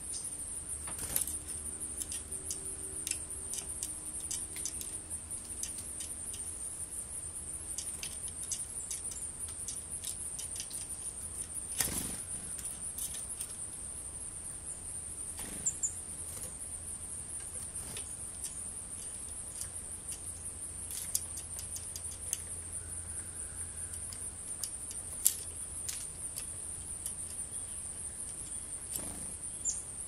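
A steady high-pitched insect trill, typical of autumn crickets, with scattered sharp clicks and taps through it, one louder about twelve seconds in.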